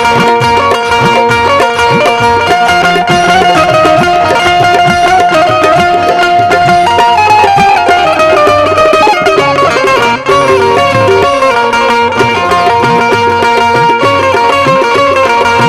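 Instrumental music with no singing: a sustained melody line stepping up and down in pitch over a steady hand-drum beat.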